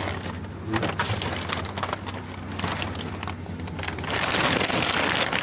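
Plastic film wrapping being handled, a dense crinkling and crackling, over a low steady hum.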